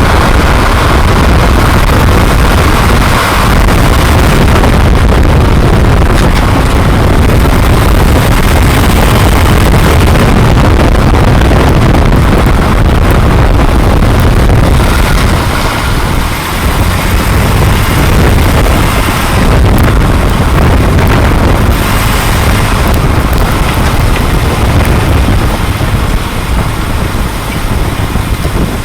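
2004 Jeep Grand Cherokee WJ being driven, with a loud, steady rumble of road and wind noise that eases off near the end.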